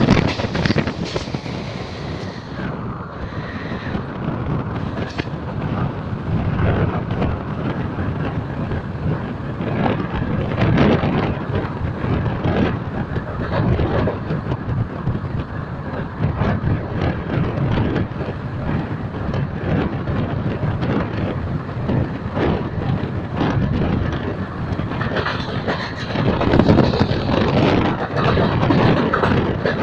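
Passenger train running at speed, heard from the coach: wheels rumbling and clattering over the rails in a steady rush with frequent short knocks, and wind buffeting the microphone. It gets a little louder near the end.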